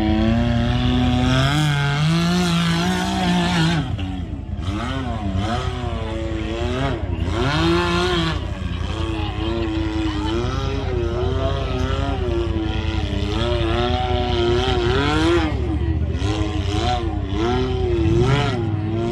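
Side-by-side UTV engine running under constantly changing throttle, its pitch rising and falling continuously over a low rumble.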